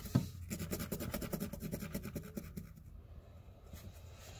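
Felt-tip marker scratching back and forth in quick strokes on a textured fabric tote bag, with a short thump just after the start; the strokes thin out about three seconds in.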